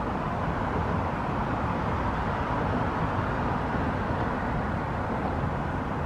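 Steady outdoor background noise: an even low rumble and hiss with no distinct events.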